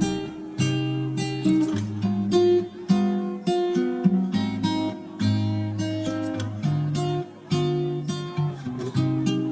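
Background music: an acoustic guitar plucks a melody over held bass notes, with no singing.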